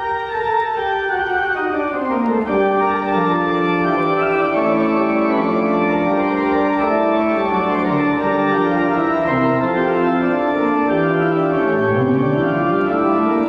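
Pipe organ being improvised on, sustained full chords with a melody line falling over the first two seconds and a low run rising near the end.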